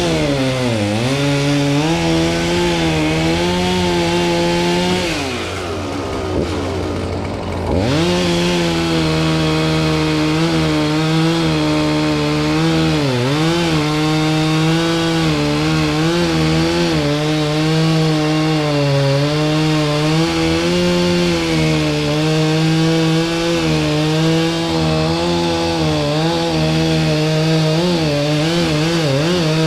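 Two-stroke chainsaw running at high speed while cutting, its pitch dipping briefly a few times. About five seconds in it drops to a lower speed, then revs back up just before eight seconds.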